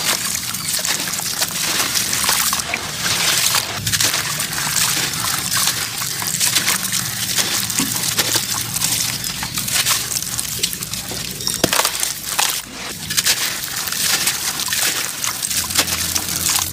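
Wet sand-cement clumps crumbled by hand in a basin of water: a steady gritty crackle as the clumps break apart, with water sloshing and trickling off the hands.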